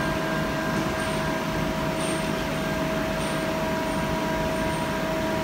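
CNC turning centre's spindle running steadily at about 1000 rpm, the chuck and workpiece spinning free before the boring tool touches, giving a steady whine of several pitches over a low hum.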